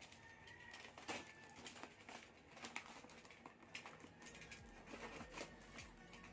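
Faint rustling and crinkling of a parcel's packaging being handled and opened, with scattered small clicks and crackles.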